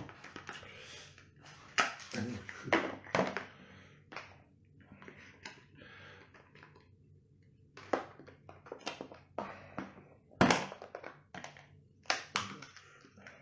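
Cooked king crab leg being cut with kitchen scissors and broken apart by hand: irregular snips, cracks and crunches of shell, with the sharpest crack about ten and a half seconds in.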